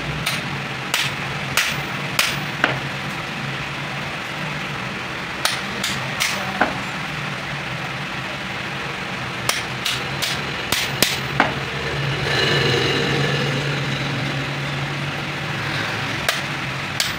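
Sharp metal taps in short runs of three to five, a hammer striking a punch held against the hub rivets of a truck clutch disc, over a steady low hum.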